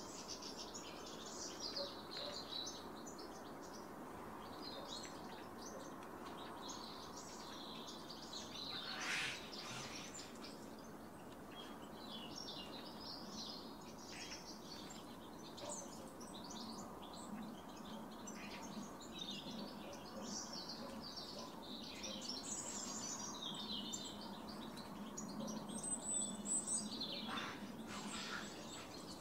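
Wild songbirds chirping and calling in quick, high, repeated notes over steady background noise, with a louder brief sound about nine seconds in and a burst of louder calls near the end.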